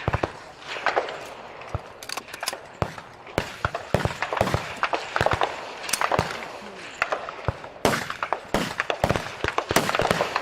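Rifle shots fired irregularly along a firing line of a high-power service rifle match, dozens of sharp reports with echoes, some loud and close, others fainter from farther down the line.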